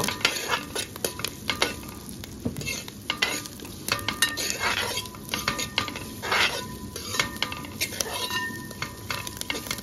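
Steel ladle scraping and clinking against a wide metal uruli as sliced coconut, ginger, green chillies and curry leaves are stirred and sizzle in hot oil while they sauté to brown. Irregular scrapes and taps, with two longer scrapes about halfway through.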